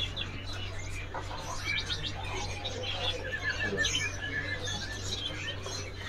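Several small caged birds chirping and twittering, with short high notes overlapping and a quick run of repeated notes about three seconds in, over a low steady hum.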